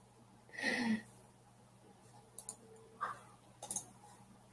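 Scattered light clicks from working a computer, with a brief louder sound just under a second in.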